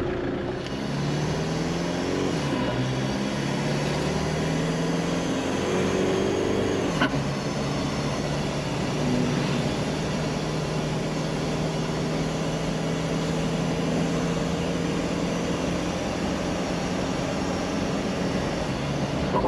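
Jeep TJ Wrangler's swapped-in Volkswagen 1.9 TDI (BEW) diesel engine, heard from inside the cab while driving. The engine pitch climbs, drops back at a gear change, and climbs again. From about seven seconds in it holds steady at cruise.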